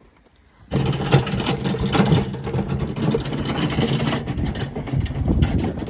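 A machine running steadily with a low hum and a fast, busy mechanical rattle, starting abruptly under a second in.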